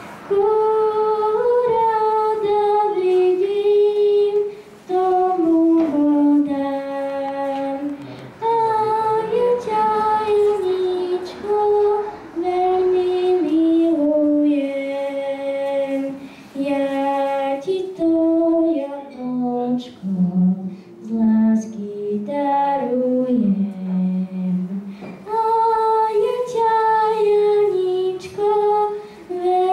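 A young girl singing a song into a handheld microphone: a single child's voice carrying a melody of held notes, with short breaths between phrases.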